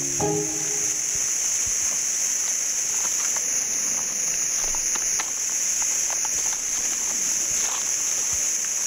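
Steady high-pitched insect drone, with small scattered ticks and scrapes of soil as a Christmas Island red crab digs in its burrow.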